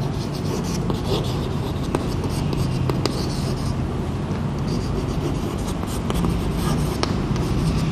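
Chalk scratching and tapping on a chalkboard as words are written in short strokes, over a steady low hum.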